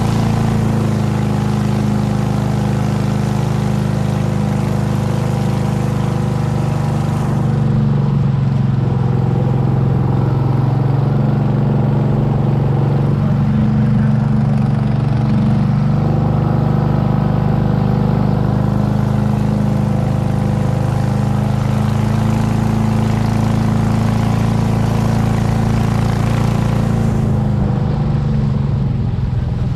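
Small motor boat's engine running steadily at cruising speed, with a hiss of water and wind over it that thins out for a stretch in the middle and again near the end.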